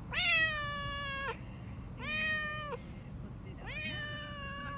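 Domestic cat in a pet carrier giving three long, drawn-out meows, each sagging in pitch at the end. These are distressed cries of protest at being taken to the vet.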